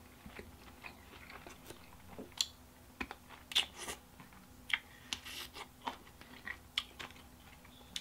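Close-up chewing of flat, thin-crust pizza: irregular crunches and mouth clicks, with a bite into a pickled banana pepper in the middle.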